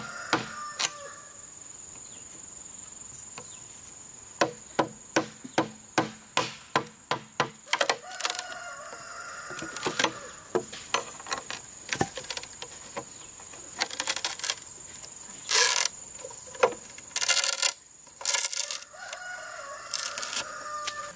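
A chisel being knocked into a green bamboo pole to cut a slot: a run of sharp knocks, about two a second in places, with rasping cuts of the blade through the bamboo later on. Chickens call and a rooster crows in the background.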